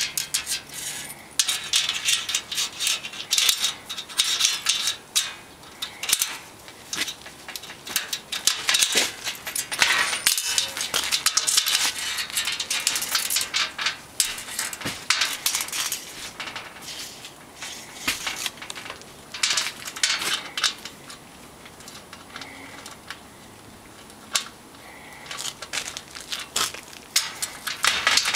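Light metallic clicking, rattling and scraping of a steel tape measure worked against aluminum strut rails, busy for about the first twenty seconds, then sparser.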